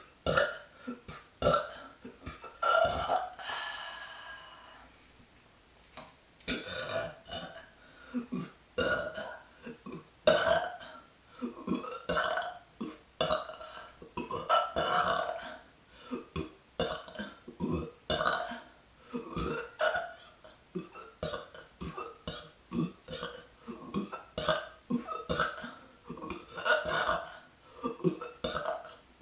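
A woman's deliberate burps, short and in quick succession, a few a second. About three seconds in comes one longer, drawn-out belch, then a brief pause before the rapid burping resumes.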